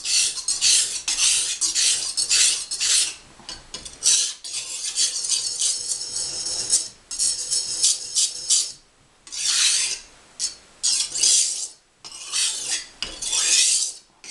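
Steel kitchen-knife blade stroked across an oiled sharpening stone, honing it to a fine edge. A fast run of scraping strokes, about three a second, gives way to a more continuous scrape after about four seconds, then to separate strokes with short pauses in the second half.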